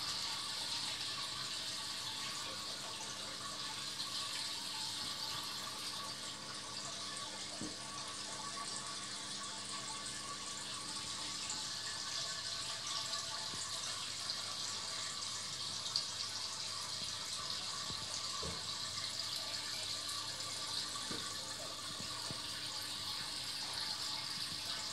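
Aquarium water bubbling and rushing from the aeration and filter outflow, a steady hiss of water with a faint even hum underneath.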